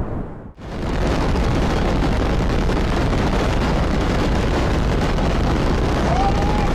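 Loud, dense roar of a severe storm, with high winds and hail battering, starting after a brief break about half a second in. Near the end a high drawn-out tone comes in over it.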